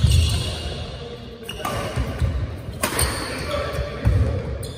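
Badminton rally: sharp racket strikes on the shuttlecock, a few of them about a second or more apart, with players' feet thudding and shoes squeaking on a wooden court floor in a reverberant hall.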